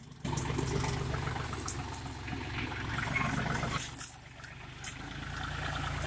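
Tractor engine running steadily under load while a rear-mounted cotton stalk removal blade drags through dry soil, with continuous crackling and scraping of soil and dry cotton stalks and a few sharp cracks.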